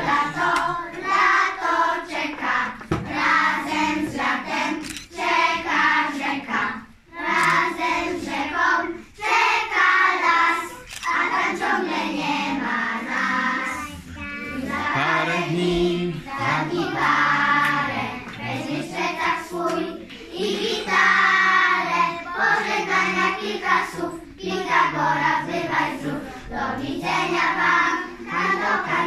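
A group of young children singing a song together as a choir, phrase after phrase with brief breaths between lines.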